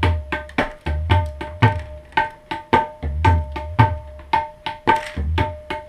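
Tabla played in a fast, even rhythm: sharp ringing strokes on the tuned right-hand drum, with deep bass strokes from the left-hand drum about every half second.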